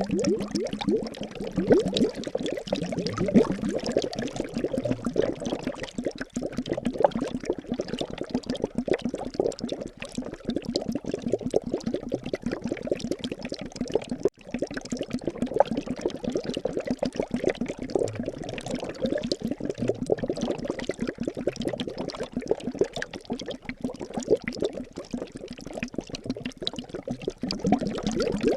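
Liquid bubbling and gurgling continuously, as a dense stream of small pops, with a brief break about halfway through.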